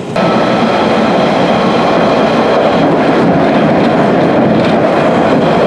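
London Underground 1992 Tube Stock train heard from inside, running between stations: a steady, loud rumble of wheels on track with a faint steady whine over it.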